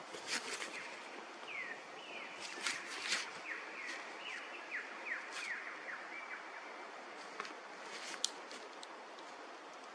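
A bird calling a run of about ten short notes that each slide downward, from about a second and a half in until about six and a half seconds, over a steady outdoor hiss with scattered sharp chirps and ticks.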